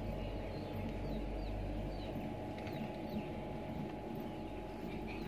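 Outdoor ambience: small birds chirping in short scattered calls over a steady low rumble and a faint constant hum.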